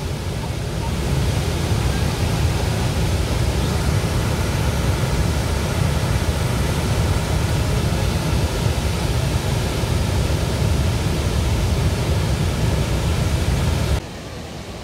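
Steady rush of a large waterfall, a dense noise heavy in the low end. About a second before the end it suddenly drops to a quieter rush.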